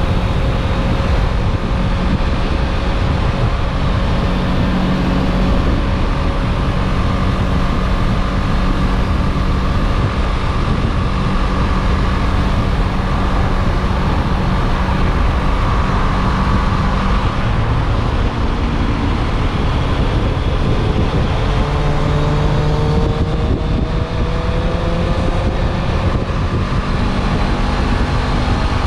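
Motorcycle engine running steadily while riding at road speed, its pitch drifting slowly up and down with the throttle.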